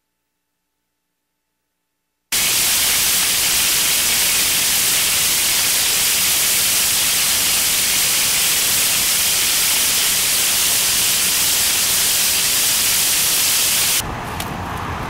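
Water spraying onto pavement: a loud, steady hiss that starts abruptly after about two seconds of silence. Near the end it gives way to a quieter, rougher noise with faint clicks.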